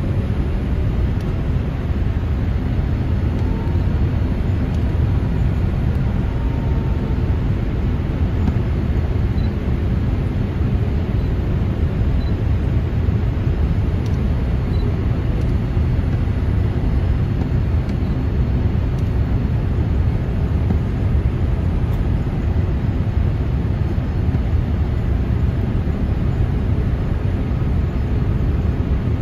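Steady cabin noise of a Boeing 787-8 in flight on approach, heard from a window seat behind the wing: a low, even rumble of airflow and its Rolls-Royce Trent 1000 turbofan engines.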